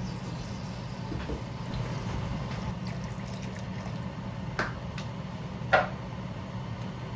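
Coconut milk poured in a thin stream into a hot aluminium wok of squash and string beans, the liquid filling the pan over a steady low hum. Two sharp taps about a second apart come near the end; the second is the loudest.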